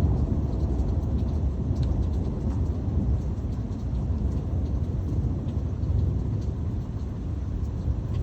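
Steady low rumbling noise with a few faint scattered ticks above it.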